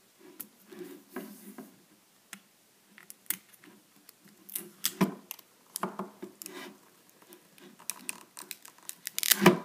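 Fingernails picking and scratching at the protective plastic film on a Samsung camcorder's flip-out screen: irregular small clicks and scrapes, with a louder rustle near the end as the film comes off.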